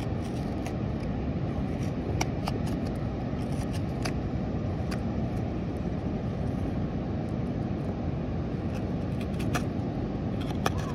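Hook knife cutting into the bowl of a butternut spoon blank: a few short, sharp slicing clicks, a cluster near the start and two near the end, over a steady low outdoor rush.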